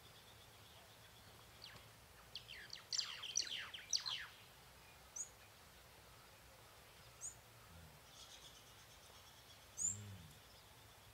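Jungle ambience: a bird gives a quick series of steeply falling notes about two to four seconds in, with short high chirps every couple of seconds over a steady pulsing insect trill. A low call rises and falls once near the end.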